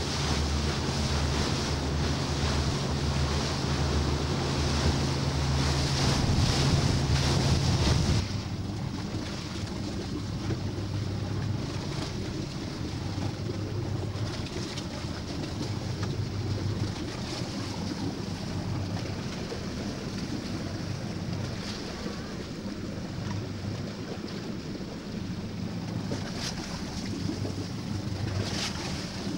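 Motor cruiser under way: a steady engine drone with wind buffeting the microphone and water rushing past the hull. About eight seconds in the sound drops suddenly to a quieter engine hum with wind and water.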